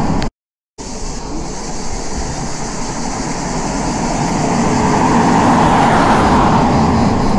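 Road vehicles passing, a steady rush of noise that swells towards the end and cuts out completely for about half a second near the start.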